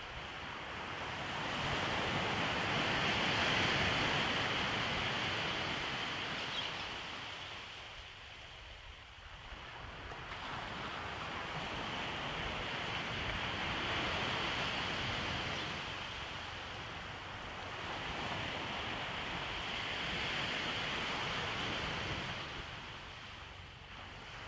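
Surf washing onto a beach: a steady rush of breaking waves that swells and fades three times in slow surges.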